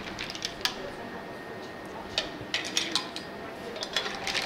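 Metal skimmer ladle knocking and scraping in a frying pan while cooked mussel shells clatter against each other and the pan as they are scooped and tipped into a plate. The sound is irregular clinks and clicks, with a small cluster near the end.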